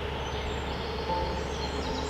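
Birds chirping in short, scattered high calls over a steady background of noise.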